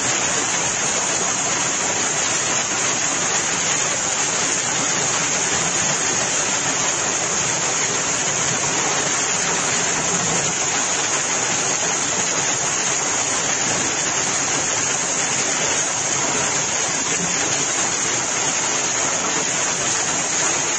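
Heavy hail pelting down without a break on parked cars and piled-up hailstones: a dense, steady rush of countless small impacts.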